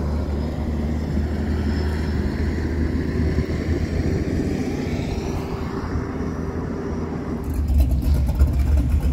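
A vehicle engine running steadily with a low hum, its pitch gliding up and down in the middle; from about three-quarters of the way in a rougher, louder rumble with crackling takes over.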